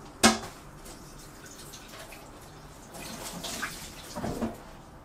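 Kitchen tap water running and splashing as a titanium cutting board is washed in the sink, with one sharp knock just after the start. The water gets louder and busier about three seconds in.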